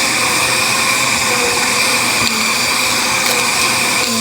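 Bissell vacuum cleaner running steadily, a loud motor with a constant high whine.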